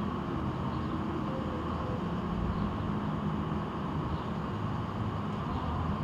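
Steady low rumble of vehicle engines and street traffic, with a faint steady engine hum.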